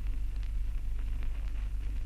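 Surface noise of an old record transfer: a steady low hum under hiss, with scattered sharp crackles and clicks.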